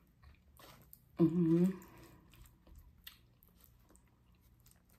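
A person chewing food with wet mouth clicks and smacks, with a brief voiced sound from the eater a little over a second in.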